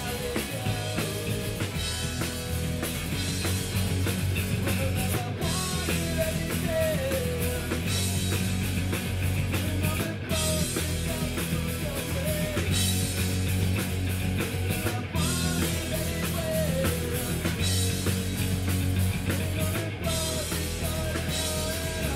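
Live rock band playing: distorted electric guitars, bass guitar and a drum kit. The whole band cuts out for a split second about every five seconds, and a gliding melody line runs over it.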